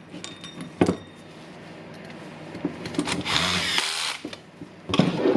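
Power screwdriver running in one burst of about a second, about three seconds in, driving a screw home. A sharp click comes near the start and a few knocks of parts being handled near the end.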